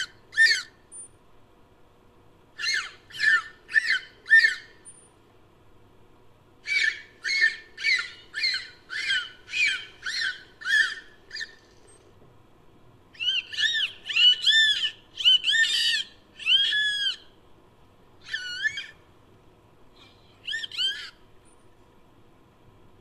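Dolphin whistles and chirps edited into an imagined call for Odobenocetops. Short chirps rise and fall in pitch and come in quick runs of two to nine, with pauses of a second or two between runs.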